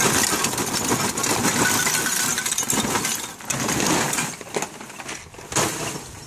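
Lump charcoal poured from a paper bag into a wire charcoal basket in a ceramic grill: a dense rattling clatter of chunks tumbling and knocking together. It thins to a few separate knocks after about three and a half seconds.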